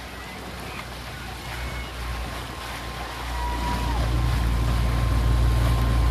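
Wind on the microphone and water rushing past a boat, over a low steady engine hum that grows louder about three seconds in.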